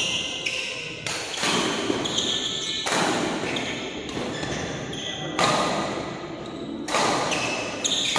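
Badminton rally: rackets striking the shuttlecock at irregular intervals of about a second, each sharp hit echoing in a large hall.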